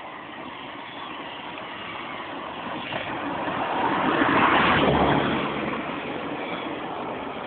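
A motor vehicle passing by: its noise swells to a peak about four and a half seconds in, with a low hum from the engine, then fades away.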